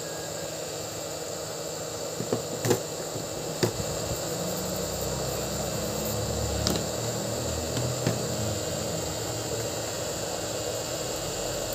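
A handful of sharp light clicks and taps from small phone parts being handled, over a steady background hiss and hum. A low rumble swells and fades in the middle.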